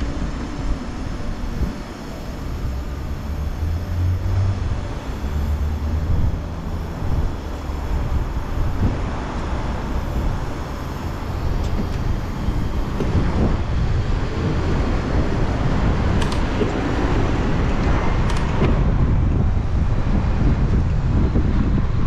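Road traffic going past, with wind rumbling on a GoPro's microphone as the bicycle rides along; the wind noise gets a little louder in the second half.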